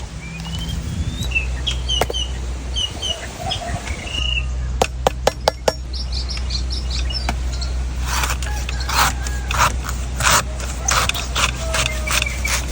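Small birds chirping over a steady low background hum. About five seconds in come four sharp knocks, and from about eight seconds a fast run of scraping strokes from a knife working a coconut.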